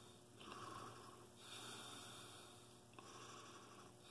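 Faint, wheezy breathing of a person, a slow in-and-out hiss with about two full breaths.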